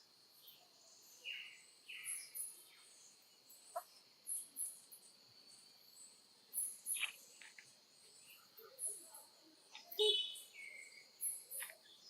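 Insects droning steadily, with many short high chirps and a few brief calls scattered throughout.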